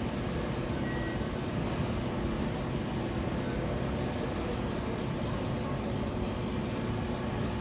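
Steady low background rumble with no clear events in it.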